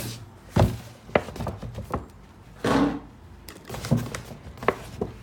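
Shoe packaging being handled: several sharp knocks and taps, with a short rustle of the shopping bag about two and a half seconds in.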